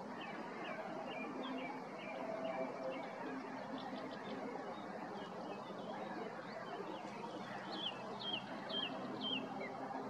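Small songbird chirping: short, high, downward-sliding chirps, a loose run early on and four clearer ones near the end at about two a second, over a faint steady low hum.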